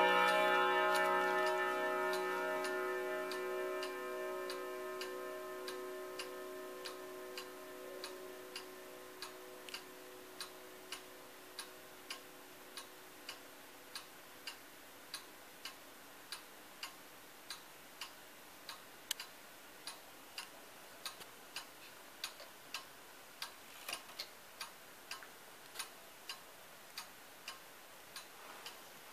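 ODO 36 Art Deco carillon wall clock: the last notes of its eight-hammer chime ring on and fade away over the first several seconds, leaving the pendulum movement ticking steadily, about one and a half ticks a second.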